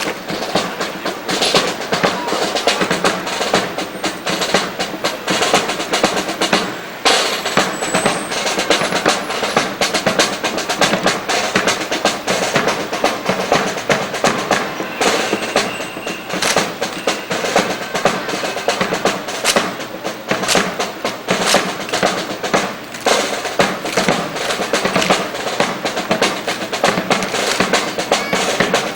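Drum-led music with snare drum rolls and bass drum beats, dense with sharp strokes throughout.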